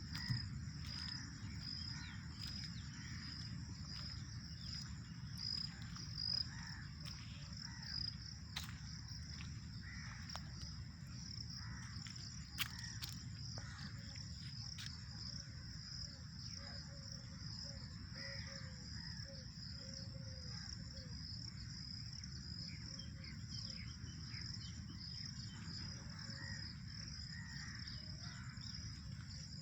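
A steady, pulsing high-pitched chorus of crickets or other insects, with scattered bird calls, including crow-like caws, over a low rumble of outdoor noise. A few sharp clicks break in.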